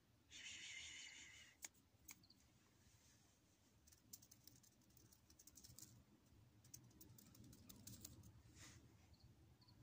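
A kitten gives one short, thin mew lasting about a second, half a second in. After it come faint scattered clicks and rustles as the kittens shift about.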